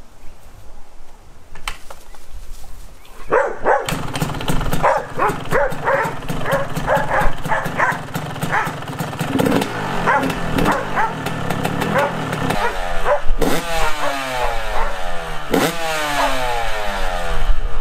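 Yamaha YZ125's 125 cc two-stroke single-cylinder engine being started, catching about three seconds in and running, then revved up and down repeatedly from about twelve seconds in.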